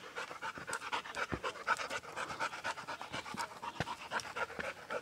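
A dog panting steadily in quick, even breaths, tired and hot from the climb.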